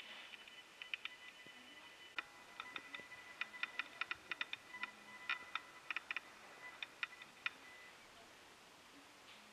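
Faint, irregular clicking and ticking in quick clusters through the middle, over a faint steady high tone.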